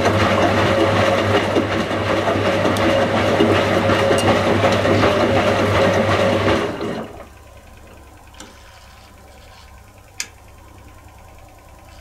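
1985 Indesit 822 washing machine's motor turning the drum in a wash tumble, a steady hum with clothes tumbling, stopping about seven seconds in as the drum comes to rest. A few faint clicks follow in the pause.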